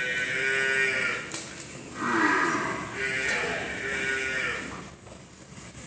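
Water buffalo calling in two long calls: the first trails off about a second in, and the second starts about two seconds in and fades out near five seconds.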